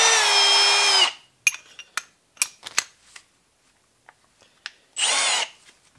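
Milwaukee cordless drill motor run briefly twice as the bit is fitted in the chuck: a whine of about a second at the start and a shorter one near the end. Small clicks and knocks of handling the drill and bit come in between.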